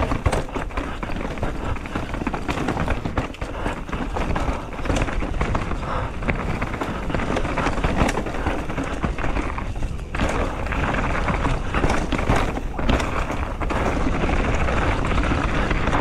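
Mountain bike descending a rocky dirt trail at speed: a steady rumble of tyres over dirt and stones, broken by many quick knocks and rattles from the bike as it hits rocks and roots, with a brief lull about ten seconds in.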